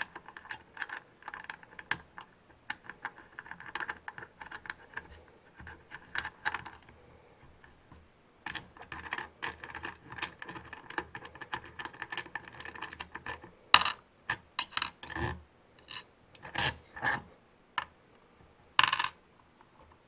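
Small steel hardware handled on a threaded steel rod: washers, a coil spring and wing nuts clicking and rattling as they are turned and slid along the threads, with a faint metallic ring. In the second half come a dozen sharper separate clicks and knocks as parts are set down on the wooden bench.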